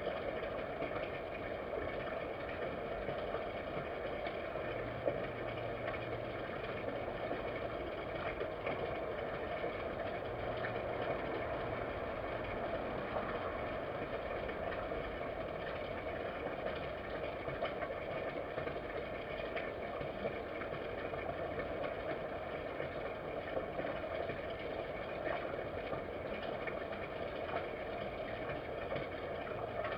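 Steady background hum and hiss, with faint scattered clicks.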